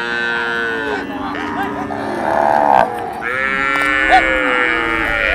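A herd of cattle mooing, several long calls overlapping one another.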